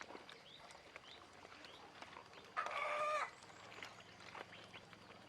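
Faint high peeping of ducklings, with one louder, steady, drawn-out fowl call lasting under a second about halfway through.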